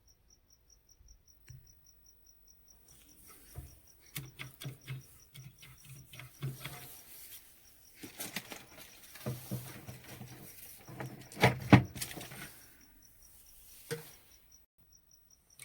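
Hand work on an electrical panel connector: irregular metallic clicks, knocks and scraping as parts and wire are handled and fitted, with two sharp knocks near the loudest point about 11–12 seconds in. A faint high chirp repeats about five times a second behind it.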